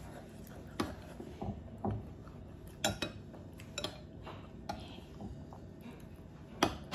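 Metal spoon clinking and scraping against a ceramic bowl while stirring porridge: a series of short, irregular clinks about once a second, the loudest near the end.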